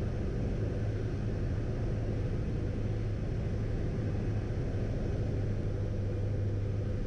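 Steady low drone of a Piper PA-28's four-cylinder Lycoming engine and the airflow, heard in the cabin on final approach and into the landing flare.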